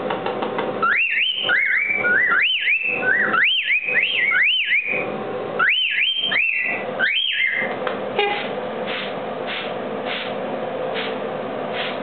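Cockatiel whistling a repeated phrase of quick rising-and-falling notes for about the first seven seconds, over a steady hiss. After that the whistling stops, and only faint regular ticks about twice a second remain over the hiss.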